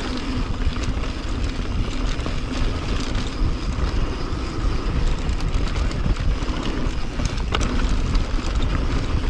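Mountain bike riding fast down a dirt singletrack: wind buffeting the onboard camera's microphone over the tyres rolling on dirt, with the bike rattling over bumps and one sharper clack about seven and a half seconds in.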